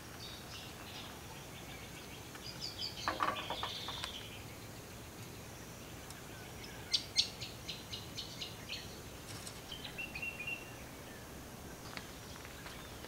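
Birds chirping and calling around the bush camp in short bursts, with a few sharp clicks and knocks as a kettle is handled and set on a camp stove.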